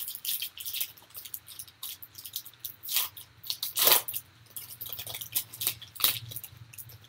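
A foil trading card pack being torn open and crinkled by hand: a run of crackling rustles with sharper tears about three and four seconds in.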